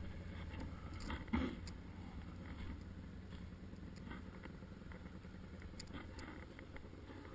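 Quad bike engine running steadily at low revs, with scattered small clicks and one sharp knock about a second and a half in.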